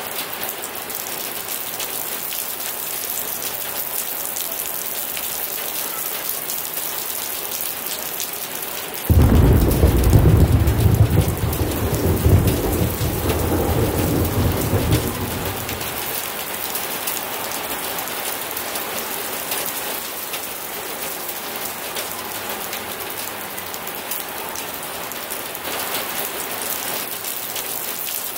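Thunderstorm: steady heavy rain, with a sudden clap of thunder about nine seconds in that rolls on as a deep rumble for several seconds before fading back into the rain.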